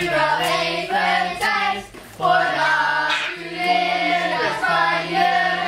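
A group of children singing a song together in held notes, with a steady low musical line beneath the voices.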